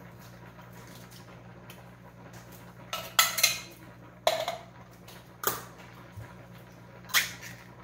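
Kitchen utensils and dishes clinking and clattering a few times in the second half, about a second apart, over a low steady hum.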